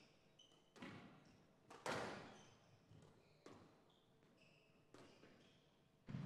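Squash ball cracking off rackets and walls during a rally: five sharp hits about a second to a second and a half apart, the loudest about two seconds in. Short shoe squeaks on the court floor come between the hits.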